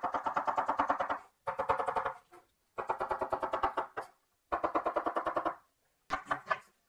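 Chef's knife rapidly chopping garlic on a wooden cutting board: quick sharp taps, about ten a second, in five runs of about a second each with short pauses between.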